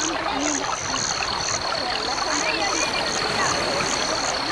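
Open-air ambience on a reservoir: a steady rushing hiss, with a high chirping that pulses two to three times a second over a thin, steady high whine.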